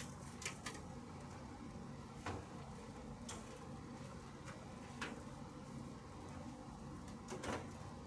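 Scattered light clicks and knocks of hands working on parts inside an opened LG Multi V air-conditioner outdoor unit, about six in all, the loudest near the end, over a steady low hum.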